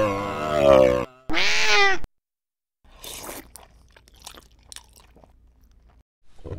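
A long meow-like creature cry that wavers and falls in pitch, then a shorter cry that rises and falls. After a short silence come faint scattered crunching and scratching sounds, and another cry starts near the end.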